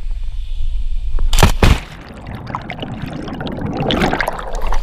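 A low rumble, then a loud splash about one and a half seconds in as a body and a handheld action camera plunge into a rock pool, followed by muffled underwater bubbling and churning water heard from the submerged camera.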